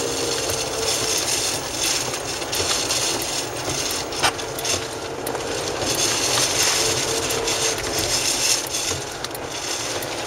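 Steady road and wind noise inside a moving car's cabin, tyres hissing on a wet highway, with a faint engine hum underneath and a single brief click about four seconds in.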